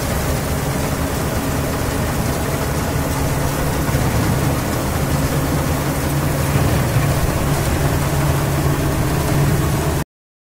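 GAM crawler-track combine harvester running under load while cutting and threshing rice: a steady diesel engine hum mixed with the rattle of the header and threshing machinery. The sound cuts off abruptly about ten seconds in.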